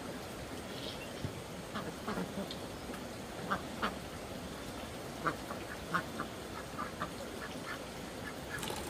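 Short animal calls, repeated irregularly many times over a steady background hiss.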